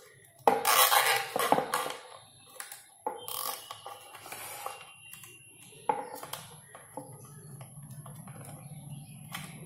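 Handling noise as a nylon cable tie is wrapped around a small plastic diaphragm pump on a plywood board: sharp knocks and clatter with scratchy rustling, then a run of small quick ticks in the last few seconds as the tie is pulled tight.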